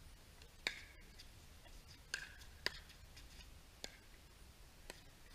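Paddles hitting a plastic pickleball back and forth in a rally: five sharp pocks at uneven gaps of half a second to a second and a half, the first and third the loudest.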